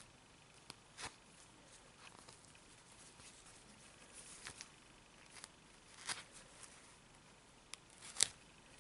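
Tacking thread being picked and pulled out of a small stitched fabric piece with a needle: faint fabric rustles and scratches with several sharp little ticks, the loudest near the end.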